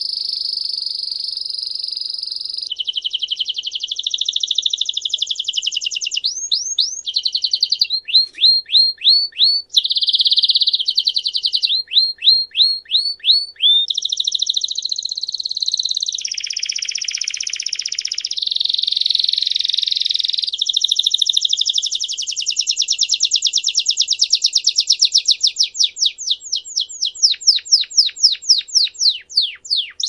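Belgian canary singing a long unbroken song of rolling trills, switching phrase every few seconds. Runs of quick, separate falling notes come about a third of the way in and again near the end.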